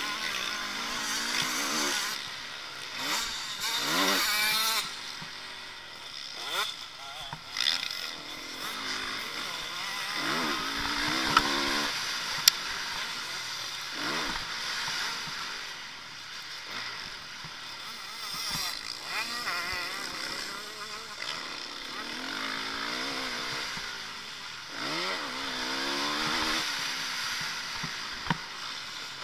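Motocross bike engine heard from onboard, revving up in repeated rising sweeps and dropping back as the rider accelerates, shifts and backs off over the track. A couple of sharp knocks sound midway.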